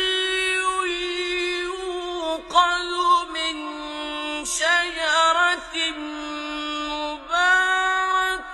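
Quran recitation: a single high-pitched voice chanting in long held notes, with ornamental turns in pitch and brief breaks between phrases.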